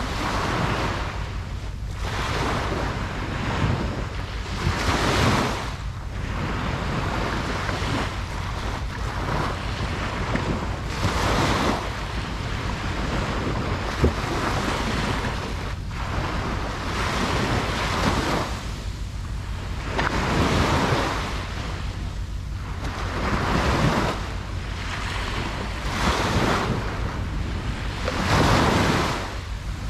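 Ocean waves breaking and washing up a beach, the surf swelling every few seconds over a steady low rumble.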